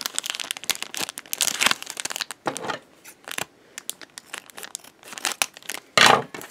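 Foil blind-bag packet crinkling in the hands and being cut open with scissors: irregular crackling rustles and small snips, with a louder crinkle near the end.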